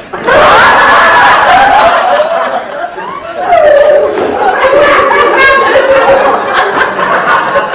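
Studio audience laughing loudly. The laughter breaks out suddenly just after the start, eases briefly about three seconds in, then swells up again.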